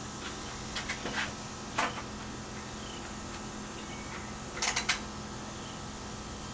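A few short clicks and taps from small parts and tools being handled on a workbench, with a quick run of clicks a little under five seconds in, over a steady low hum.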